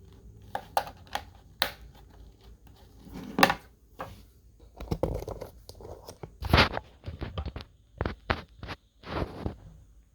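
Plastic toy packaging being handled and torn open: irregular crinkling and tearing with scattered sharp clicks and taps.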